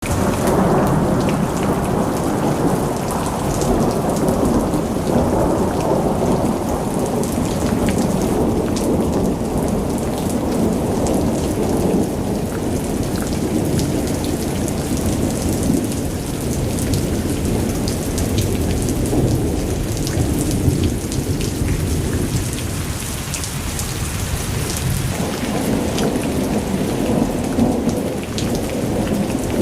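Thunderstorm: heavy rain pattering steadily over long rolling thunder, a deep rumble that swells and fades, easing for a few seconds about three quarters of the way through and building again near the end.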